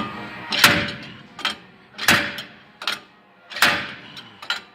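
Slide hammer bolted to the old wheel hub's studs being slammed backwards to knock the hub assembly loose: three hard metal impacts about a second and a half apart, each followed by a lighter click.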